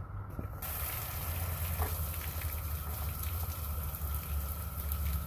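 1996 Mercury two-stroke outboard running off load on flushing muffs: a steady low engine drone with water spraying and splashing from the lower unit. The engine was brought in for a miss, but no solid miss stands out on this run.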